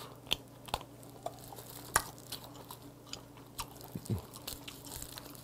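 Close-up chewing of oyster meat: soft wet mouth clicks and smacks, a handful of sharper ones scattered irregularly.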